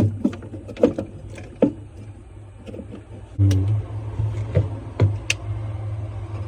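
Scattered clicks and knocks of parts being handled during a refrigerator evaporator fan motor swap, over a steady low hum that grows louder about three and a half seconds in.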